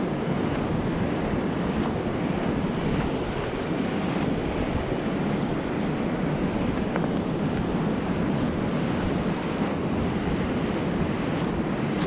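A steady wash of ocean surf breaking on a cobble beach, mixed with wind buffeting the built-in microphone of a head-mounted GoPro, with no let-up.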